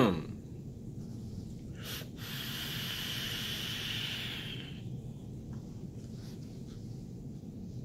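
A brief vocal sound fading right at the start, then a long airy hiss of vaping breath and vapour through a rebuildable dripping atomizer. The hiss begins about two seconds in and lasts about two and a half seconds.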